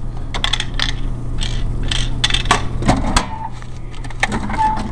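Snack vending machine dispensing: its motor hums and the spiral coil turns with clicks and rattles, then a thump about three seconds in as the packet of fruit snacks falls into the tray.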